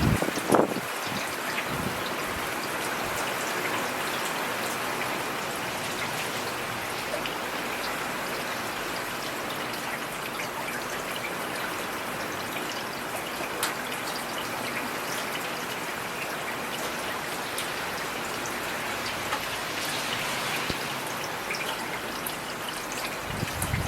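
Steady rainfall, with individual drops ticking sharply here and there. A single brief loud thump stands out about half a second in.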